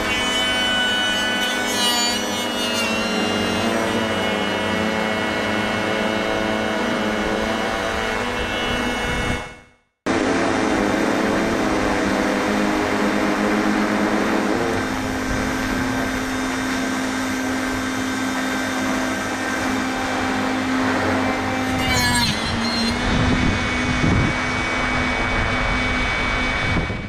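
Drone propellers and motors hovering, a steady hum with a whine of several pitches, while the DeLeaves sampling tool's saw cuts a branch tip. The sound breaks off for a moment about a third of the way through and resumes. About two seconds in, and again shortly after the three-quarter mark, the pitch wavers and rattles as the tool works on the branch.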